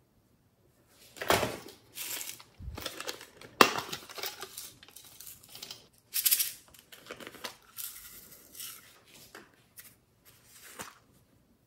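Small plastic jars being picked up, knocked together and set down on a table: an irregular string of knocks, clicks and rustles, with one sharp click about three and a half seconds in.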